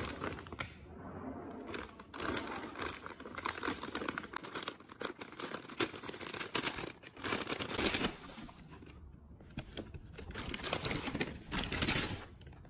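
Kraft-paper takeaway bag rustling and crinkling as it is handled and opened, in two long spells of dense crackle with a quieter lull about two-thirds of the way through.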